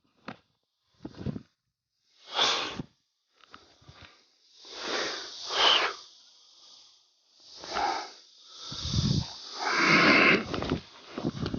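A martial artist's forceful hissing exhalations and grunts with each explosive power release, a string of short bursts and a few longer, louder outbreaths.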